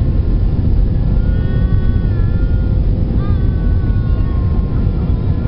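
Jet airliner cabin noise during the landing rollout: a loud, steady low rumble of engines and wheels on the runway, heard from a window seat over the wing, with a faint steady hum above it.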